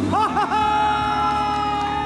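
A person whooping in celebration: two short yelps, then one long, high held 'woo'. Under it, a freshly swapped-in engine idles steadily just after its first start.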